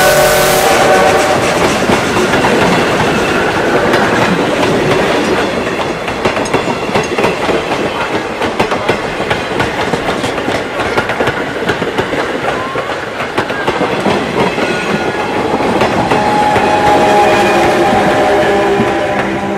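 Vintage passenger coaches rolling past close by, their wheels clacking over the rail joints in a dense run of ticks. A held whistle-like chord of tones is fading out at the very start, and another held chord sounds a few seconds before the end, as the last coach passes.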